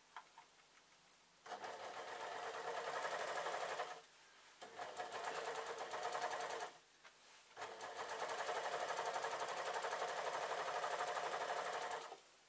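Overlocker (serger) stitching a seam in three runs of a few seconds each, a fast even rattle that stops briefly twice.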